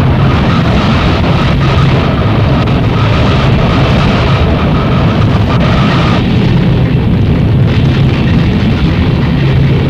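Harsh noise music: a loud, unbroken wall of distorted noise, heaviest in the low end. A higher whining layer drops out about six seconds in.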